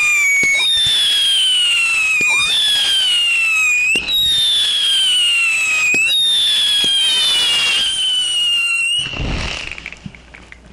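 Whistling fireworks: a run of overlapping whistles, each falling in pitch over about two seconds, a new one starting every second or two. Near the end the whistles stop and give way to a short noisy rush that fades.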